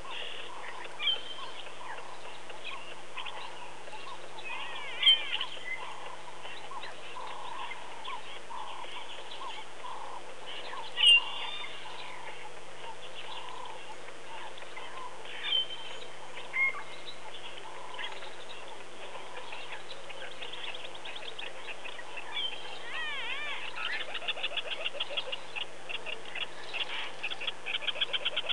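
Wild birds calling around a waterhole: a steady series of short repeated calls with a few louder sharp chirps, and a fast chattering trill of rapid notes starting near the end. A steady low hum runs underneath.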